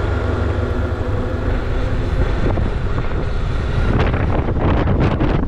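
Strong wind rushing over the camera microphone on a moving motorcycle, over a steady low drone. The buffeting turns into harder irregular gusts about four seconds in.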